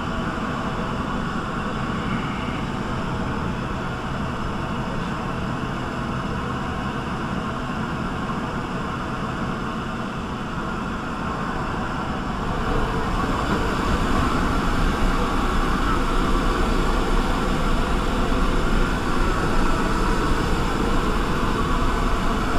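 Steady engine and propeller drone inside a light aircraft's cabin, growing louder about halfway through.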